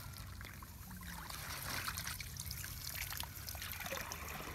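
Water trickling and dripping from a plastic bag scooped full of water, faint, with many small drips.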